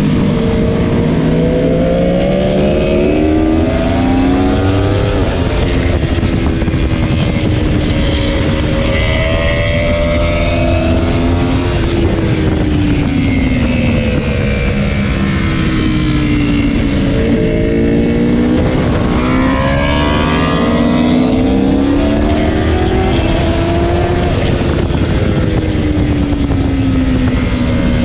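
Aprilia Tuono V4 1100's 65-degree V4 engine, heard from on board, pulling hard around the track in second and third gear: its note climbs and drops several times as the rider accelerates and backs off for corners.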